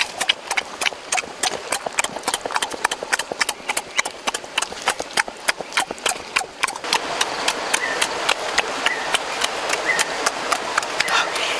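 Rapid, irregular wet smacking and clicking of eating by hand: fingers tearing soft cooked fish flesh and open-mouthed chewing.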